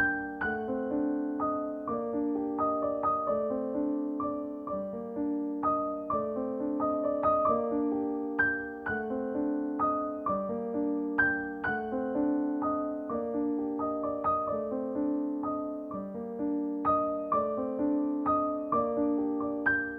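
Background piano music: a gentle, steady pattern of single notes and chords.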